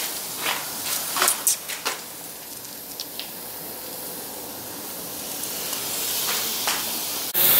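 Faint steady hiss with a few scattered knocks and rustles as a handheld camera is carried, then near the end a sudden cut to loud, steady sizzling of chicken breasts on a grill.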